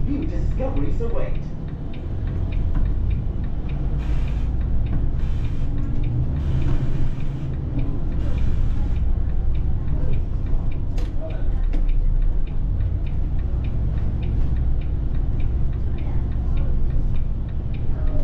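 Volvo B8RLE bus's Euro 6 diesel engine and ZF automatic gearbox running under way, heard from the driver's cab as a steady low rumble, with a hiss in the middle. A turn indicator ticks steadily through the second half.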